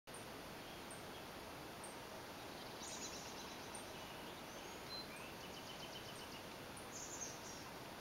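Faint, distant birdsong over a steady hiss: short fast high trills about three seconds in and again near the end, a brief whistle and a longer rising-then-held note in between, and a very high thin chirp repeating about once a second.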